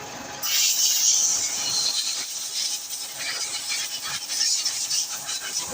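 Pressure washer jet spraying water onto a motorbike: a loud hissing spray that starts abruptly about half a second in and wavers in strength as the jet moves.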